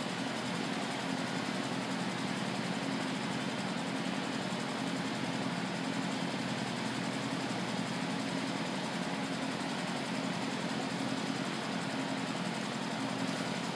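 Leaf blower's small gasoline engine idling steadily, an even low drone with no revving.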